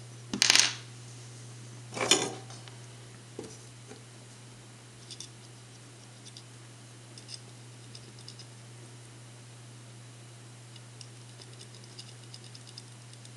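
Small tools and parts being handled at a workbench while alligator clips are fitted to wire leads: two short rasping noises near the start, then scattered light ticks and clicks over a steady low hum.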